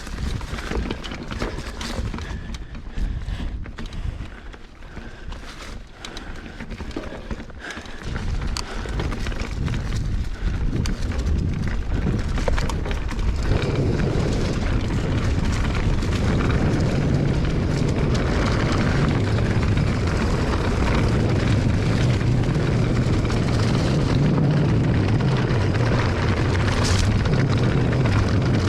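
Wind buffeting a ride-mounted microphone, with knocks and rattles from rolling over rough trail. About halfway through, the wind noise swells into a steady loud rumbling rush as the speed picks up.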